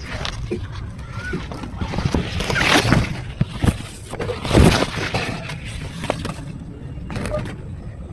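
Leaves and plant stalks rustling and brushing close to the microphone in irregular bursts, loudest about three and four and a half seconds in, with a few faint short chirps.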